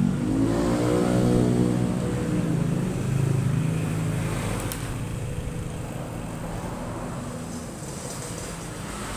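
A vehicle engine running: its pitch falls during the first second, then holds steady and fades after about four seconds.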